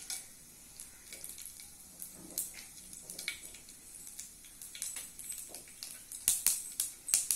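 Hot oil in a frying pan crackling faintly with scattered pops as chana dal and dried red chillies fry in a tempering. The pops come thicker near the end.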